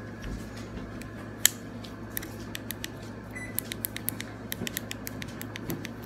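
Plastic fidget cube clicking under the fingers: a few scattered sharp clicks, then a quicker run of several clicks a second from about halfway.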